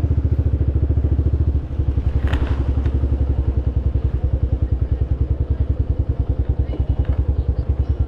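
Motorcycle engine running with a steady, rapid pulsing beat. It gets quieter and lower about a second and a half in.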